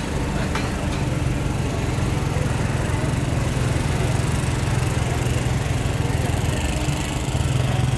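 Motorcycle engine idling steadily with a low, fast, even putter.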